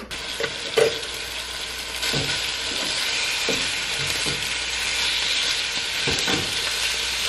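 Raw ground meat sizzling in a hot frying pan, a steady hiss that grows a little louder about two seconds in, with a few light knocks of a utensil in the pan.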